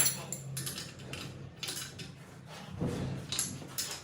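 Metal parts and tools being handled: a series of light clinks and knocks at irregular intervals.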